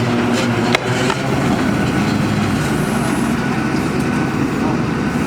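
Borehole drilling rig's engine running steadily, with a few short metal clinks about half a second to a second in.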